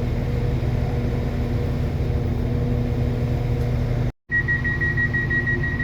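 Stationary train's engine idling, a steady low hum with a few fixed tones. It cuts out for a moment about four seconds in, then returns with a steady high-pitched whine added.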